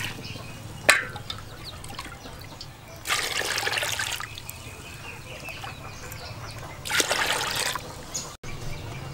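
Water poured from a bowl into an aluminium pot of flour, splashing in two bursts of about a second each, with a short sharp splash about a second in.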